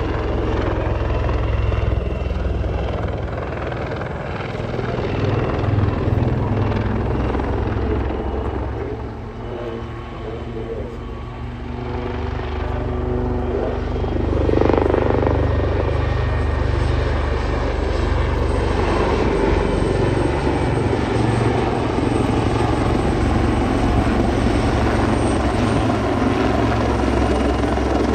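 AgustaWestland AW159 Wildcat helicopter flying a display pass, a steady rotor and turbine noise. It dips for a moment about ten seconds in, then grows louder as the helicopter comes closer.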